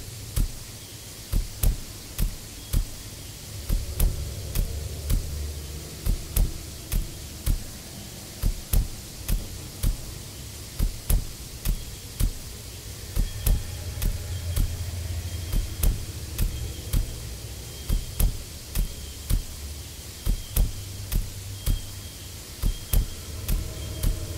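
Sharp clicks or knocks repeating irregularly, about one to two a second, over a low rumble that swells now and then.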